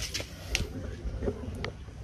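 A few light clicks and taps over a low rumble: one near the start, one about half a second in, and two close together about a second and a half in.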